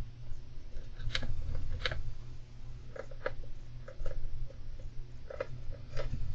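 Golden hamster making scattered small clicks and crunches, about nine over a few seconds and uneven in spacing, over a steady low rumble.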